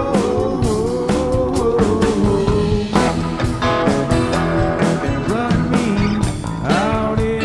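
Rock band playing in a studio: electric guitars over Hammond organ and a drum kit with frequent cymbal hits.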